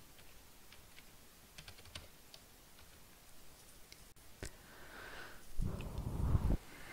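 Scattered light clicks from a computer keyboard and mouse: a small cluster about two seconds in and a sharper single click about four and a half seconds in. Near the end comes a louder low rumbling noise lasting about a second.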